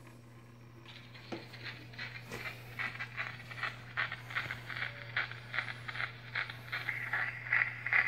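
Edison Standard D cylinder phonograph starting to play back a freshly recorded wax cylinder through a Model C reproducer and horn. About a second in, a hiss of surface noise begins, with a regular crackle about three times a second that grows louder. The blank has heavy surface noise, which the owner puts down to flaking after shaving. A steady low hum runs underneath.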